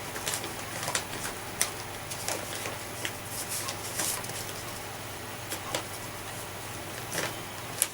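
Irregular light clicks, taps and rustles of hands working a paper dust bag onto the bottom fill pipe of a 1973 Hoover Junior upright vacuum cleaner.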